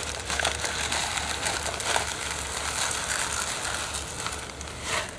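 Plastic bag of 4 mm fishery pellets crinkling as the hard pellets are poured out, with many small ticks of pellets falling into a tub.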